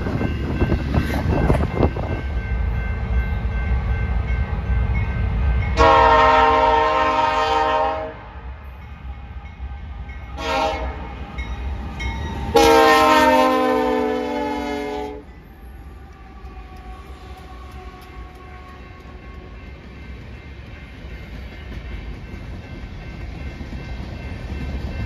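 A freight train rumbles past at first. Then a BNSF GE C44-9W diesel locomotive's multi-note air horn sounds a long blast, a short one and another long one, the end of a grade-crossing warning. After that the train rolls by with a steady rumble of freight cars.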